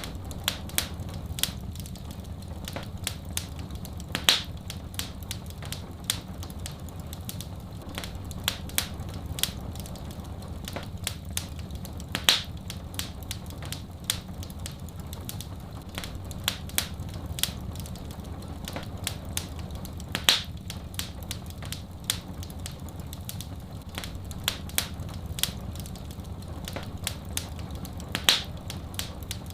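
Wood fire crackling: many small snaps, with a louder pop about every eight seconds, over a low steady rumble.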